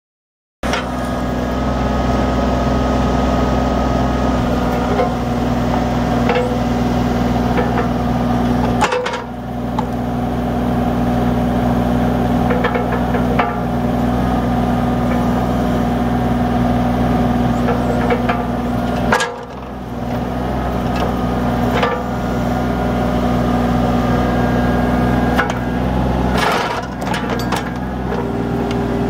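Kubota U35 compact excavator's three-cylinder diesel engine running steadily while the hydraulic boom and arm are worked, with occasional knocks.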